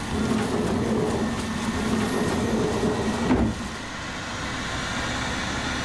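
Cartoon helicopter sound effect: a wavering engine hum as the helicopter comes in close, cut off by a sudden loud hit about three and a half seconds in. A steady rushing noise follows.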